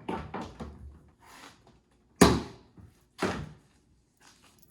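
Storage hatch lids on a jet ski being handled and shut: a short clatter of knocks, then two solid thuds about a second apart.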